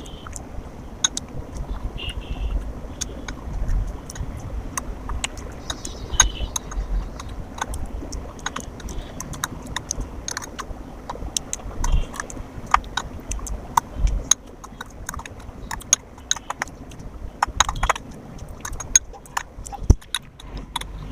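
Close-up eating sounds: chewing with many quick, irregular sharp clicks and smacks throughout.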